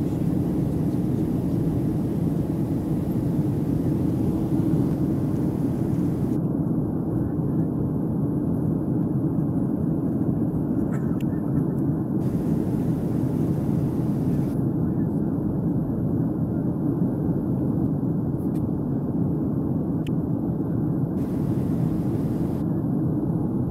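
Steady cabin noise inside a Boeing 737-700 climbing after takeoff: a constant low drone from its CFM56-7B turbofan engines and the rush of air along the fuselage.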